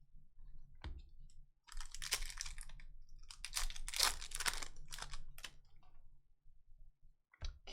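Hockey trading cards and their foil pack being handled: a click about a second in, then two spells of crinkling and rustling as cards are slid and flipped through.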